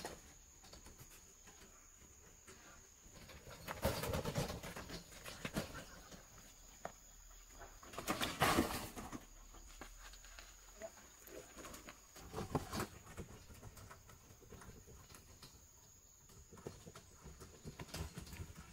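Loaded two-wheeled hand cart rolling over a dirt path and a plank bridge, rattling and rumbling in several bursts of about a second each. A steady high whine runs underneath.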